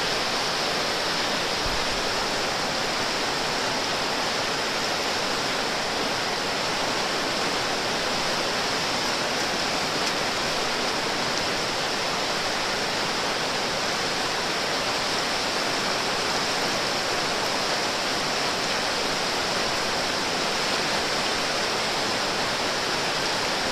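Whitewater river rapid rushing steadily, an even, unbroken hiss of fast broken water.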